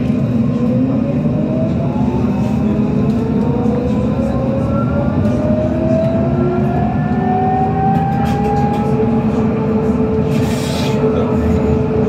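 Citadis 302 tram pulling away: its traction motors whine in several tones rising slowly in pitch as it gathers speed, settling to one steady tone near the end, over a constant rumble of the wheels on the rails. A short hiss comes about ten seconds in.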